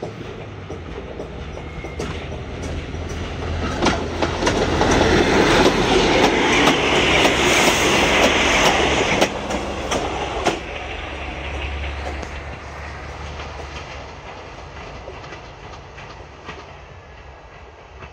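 A set of four coupled MÁV Bzmot diesel railcars approaches and passes close by. The diesel engines hum and the wheels clack over the rail joints. The sound builds to its loudest in the middle, then fades as the train moves away.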